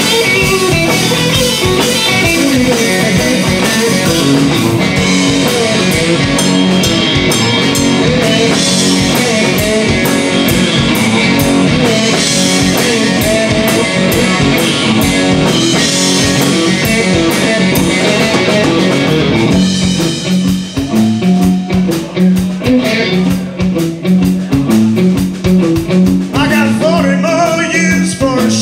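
Live blues-rock band: Telecaster-style electric guitar playing loud and full over electric bass and drum kit. About two-thirds of the way through, the band drops back to a sparser bass-and-drums groove, and a man's singing voice comes in near the end.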